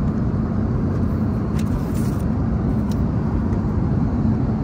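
Airliner cabin noise: the steady drone of the engines and airflow in flight, with a low hum running through it.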